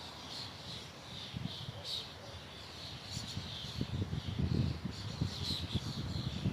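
Birds chirping in short repeated calls over a low, gusty wind rumble that grows stronger about halfway through.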